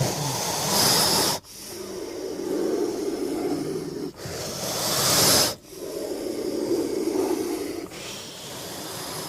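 King cobra hissing: a low, growl-like hiss in long drawn breaths, about four in a row with brief pauses between them, two of them ending in a louder, sharper hiss.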